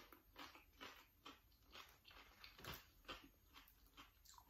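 Faint close-up chewing of food with soft wet mouth clicks, about three a second.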